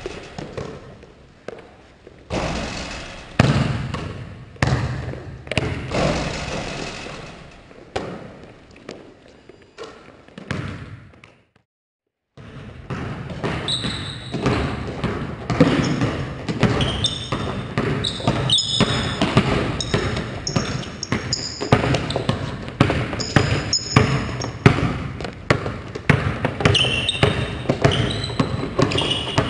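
Basketball bouncing and being caught on a hardwood gym floor, each bounce ringing in the big hall. After a short silent break about eleven seconds in, it turns to quick, steady dribbling with repeated sneaker squeaks on the court.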